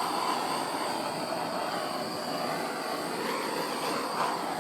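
Handheld torch burning with a steady hiss, passed over wet poured acrylic paint to pop the air bubbles in it.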